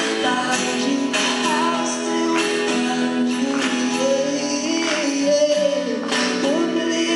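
Live acoustic performance: a man singing in a high voice into a microphone over two strummed acoustic guitars.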